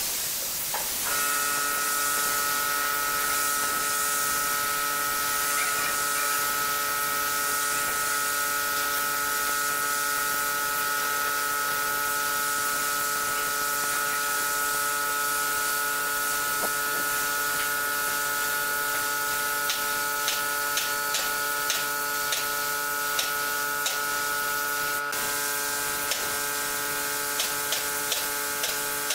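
Compressed-air spray gun hissing steadily as it sprays finish onto a pine table, over a steady machine hum that sets in about a second in. A few light clicks come through in the last ten seconds.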